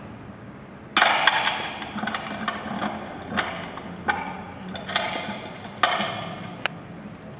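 Prepared acoustic guitar, its strings laced with chains and plastic tubing, struck and worked by hand: several sharp hits, each ringing and fading, the first and loudest about a second in.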